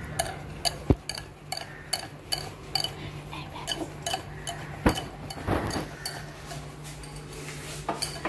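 A metal fork beating Oreo-and-milk cake batter in a ceramic bowl, its tines clinking against the bowl a few times a second, with two heavier knocks, about a second in and about five seconds in.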